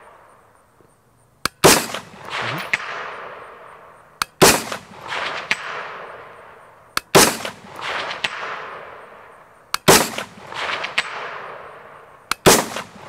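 A 25-45 Sharps AR-15 rifle fired five times at a slow, steady pace, about one shot every 2.7 seconds, each report trailing off in a long echo. Each shot is followed under a second later by a fainter sound from downrange, fitting the ring of the 300-yard steel auto-popper being hit.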